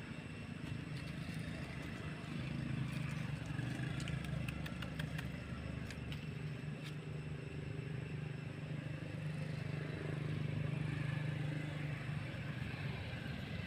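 A steady low engine hum, such as from a motor vehicle running nearby, with a few faint clicks about four to six seconds in.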